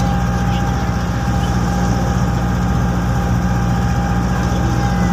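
A jeepney's engine running steadily as it drives along the road, a low drone with a thin steady whine above it.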